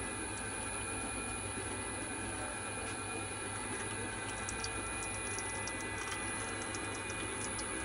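Small electric cold-press screw oil expeller running steadily while pressing poppy seeds: a constant motor hum with faint irregular clicks, more of them around the middle.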